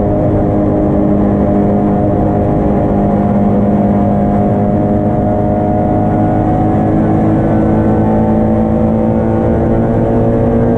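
Racing Zastava Yugo's engine at high revs under load, heard from inside the cabin. The note holds high, then climbs steadily through the second half as the car accelerates.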